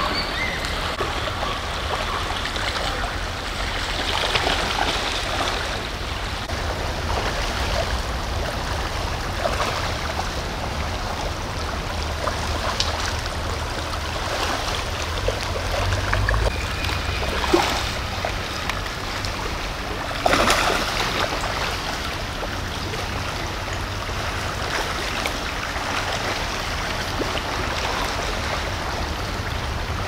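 Shallow salmon creek running steadily over stones, with occasional splashing of salmon struggling upstream through the shallows; two short, sharper splashes stand out a little past the middle.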